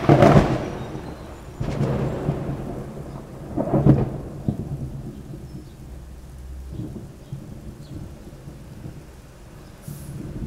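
Thunder rumbling in three loud swells over the first four seconds, then dying back, over steady rain falling.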